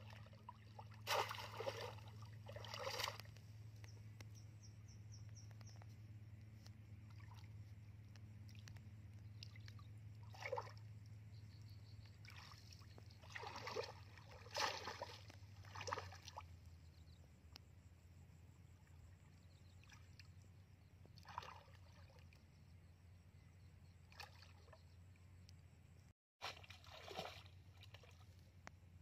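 Shallow muddy water splashing and sloshing as a wader steps through it and dips a woven bamboo fish trap. The splashes come in short bursts a few seconds apart, over a faint low steady hum that fades about halfway through.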